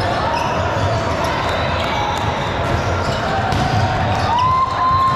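Indoor volleyball rally on a hardwood gym court: the ball being struck, sneakers squeaking on the floor and players calling out. About four seconds in, a long steady high tone starts and holds as the point ends.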